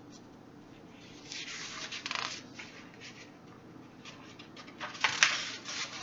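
Paper rustling as a picture book's page is turned: a swish about a second in, then a run of sharp crackles and taps near the end.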